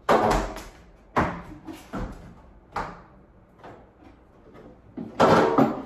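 Knocks and bumps of a microwave being handled while it is mounted. There is a loud knock at the start, single knocks about one, two and three seconds in, and a louder cluster of bumps near the end.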